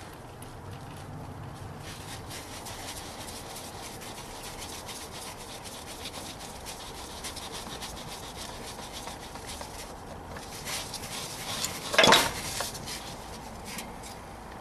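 Light scraping, rubbing and clinking of hands and tools on the oil filter and its housing, with one brief louder scrape or clatter about twelve seconds in.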